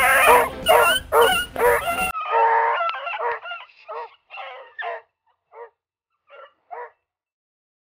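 A pack of beagles baying, a close, overlapping chorus at first. Then single bays grow fainter and further apart as the hounds move off, the way rabbit hounds give tongue while working a scent line. A rushing noise on the microphone over the first two seconds cuts off abruptly.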